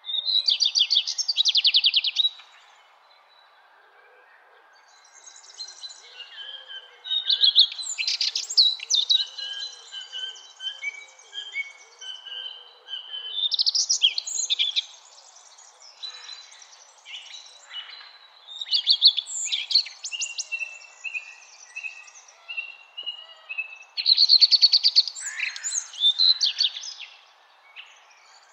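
A songbird singing loud, rapid trilled phrases roughly every five or six seconds, with quieter chirps between them, over faint steady background noise.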